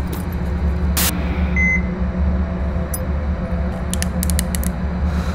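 Low, steady droning hum with sharp clicks: one about a second in, another near three seconds, and a quick run of clicks around four seconds in.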